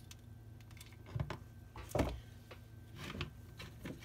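Handling noises from a hot glue gun and craft pieces on a desktop: a few separate light knocks and clicks, the loudest about halfway through.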